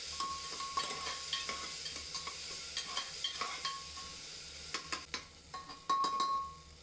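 A metal spatula stirring and scraping soft onion-tomato masala around the bottom of a metal pressure cooker: irregular clicks and scrapes against the pot over a soft frying sizzle, the loudest scrapes about six seconds in.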